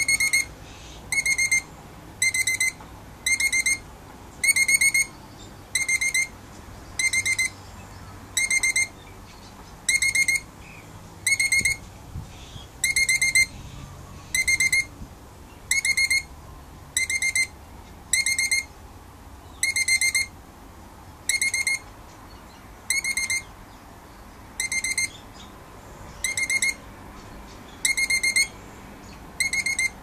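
Rainbow lorikeet calling over and over: a short, high-pitched call with a wavering tone, repeated roughly once a second.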